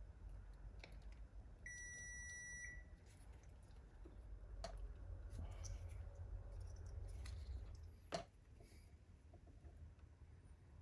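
Crimping pliers clicking as blue crimp connectors are squeezed onto the wires, the sharpest click about eight seconds in. About two seconds in, a single electronic beep lasts about a second, over a low steady hum.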